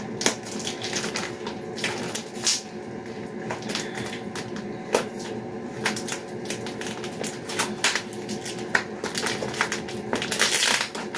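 Clear plastic packaging crinkling and crackling in the hands as a wrapped bath mat is being unwrapped: irregular sharp crackles, with a longer, louder rustle of plastic near the end.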